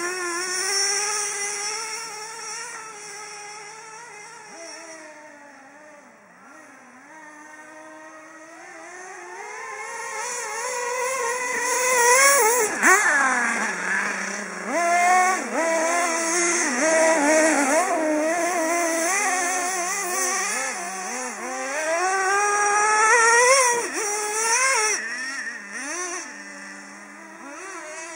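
Small two-stroke nitro engine of a radio-controlled truck, revving up and down as the truck drives around. It fades as the truck moves away and grows loud on two close passes, one about halfway through and one near the end.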